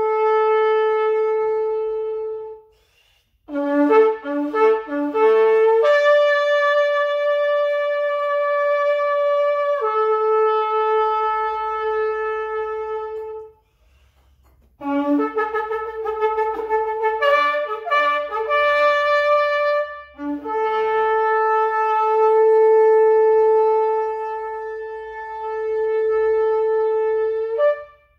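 A long twisted shofar blown in a series of calls: long held blasts alternating with quick runs of short, broken notes that jump between a lower and a higher pitch. There is a brief break about halfway through, and the last long blast ends with a short upward flick.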